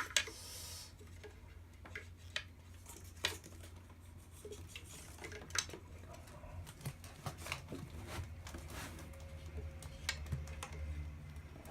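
Scattered light clicks and small knocks of hands handling the leads, plugs and controls of a Pioneer SA-6600II amplifier, over a steady low hum.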